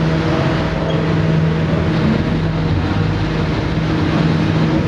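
Steady machine drone with a constant hum, holding an even pitch and level without revving up or down.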